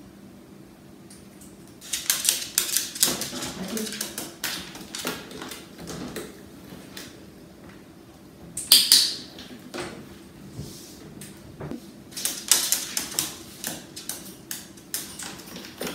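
Clicking and clattering of a plastic pet carrier with a wire door as a male eclectus parrot climbs in and moves about on its plastic floor, with a sharp training-clicker click about nine seconds in. Near the end the carrier's wire door rattles as it is handled.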